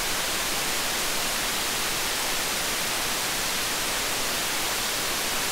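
Steady, even hiss, strongest in the upper range: the amplified self-noise of a TL082 JFET-input op amp in a gain-of-101 noise-test circuit.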